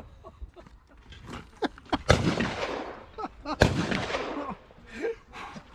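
Two shotgun shots about a second and a half apart, each a sharp crack with a short echoing tail.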